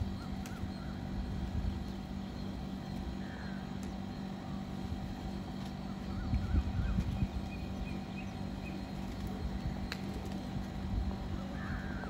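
Outdoor city ambience: a steady low hum with short, high bird chirps now and then, in small clusters.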